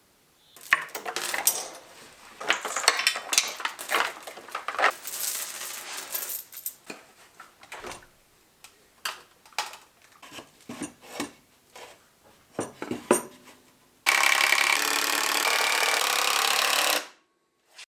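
Metal tools and parts clinking and clattering in irregular knocks during engine work, followed about fourteen seconds in by a loud steady rush of noise lasting about three seconds that cuts off suddenly, then a single click.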